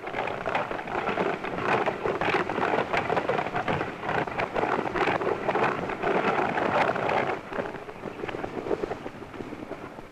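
Horse-drawn coach racing off at a gallop: a dense clatter of hooves and rattling wheels that starts suddenly, stays loud, then fades away over the last few seconds. It comes from an early 1930s sound-film track.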